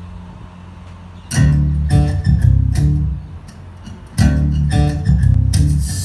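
Guitar and bass intro of a recorded song played through a pair of Denon Genova SC-900 loudspeakers driven by a Harman/Kardon HK 3470 stereo amplifier: plucked notes in a repeating phrase. The notes come in about a second in, drop back just past the middle, and start again.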